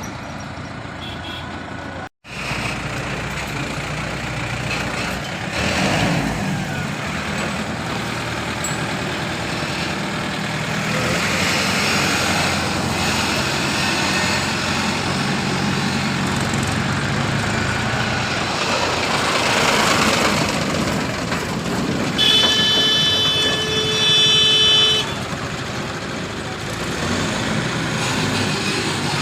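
Heavy vehicle engines running steadily, with a single vehicle horn blast lasting about two and a half seconds near the end, the loudest sound in the stretch. The sound drops out completely for a moment about two seconds in.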